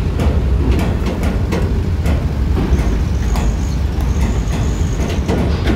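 Steady low rumble of heavy diesel bus and truck engines, with many sharp clanks and knocks, and a faint high squeal for a couple of seconds in the middle.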